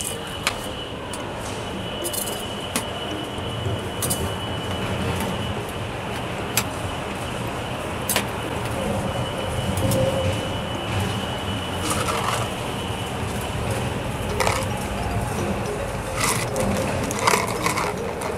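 Metal spatulas scraping and tapping on a frozen steel ice-cream pan while rolled ice cream is scraped into rolls and lifted into a cup, with scattered sharp clicks of metal on metal.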